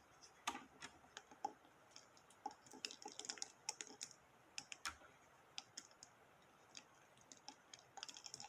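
Small plastic Barrel of Monkeys toy monkeys clicking against one another as they are hooked arm to arm into a chain: a faint, uneven run of light clicks, busiest in the middle and again near the end.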